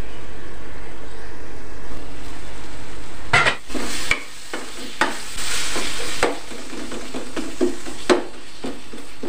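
Onion-tomato masala sizzling in a cooking pot, with a spoon stirring and knocking against the pot several times from about three seconds in.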